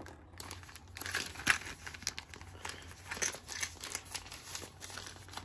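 Packaging crinkling and rustling while small tools are unpacked by hand, in a run of irregular light crackles and clicks.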